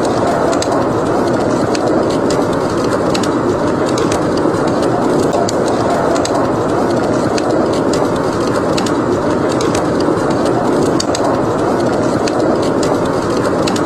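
Steady rushing noise of blizzard wind with a wood fire crackling over it in frequent, irregular sharp pops.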